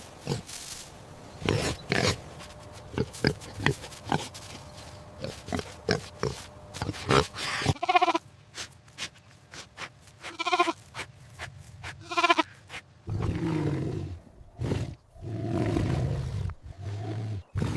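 Recorded animal calls: quick short grunts in the first half, three pitched, pulsing cries around the middle, then long low growls near the end.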